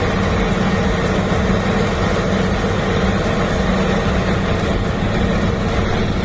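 Heavy vehicle engines running steadily in a constant low drone, as from tractors working to pull free of deep mud.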